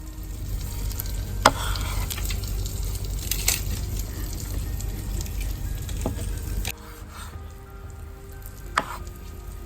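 Masala-coated chicken sizzling on a fire-heated rock, with a few sharp clicks and knocks. A low rumble under it stops about two-thirds of the way through.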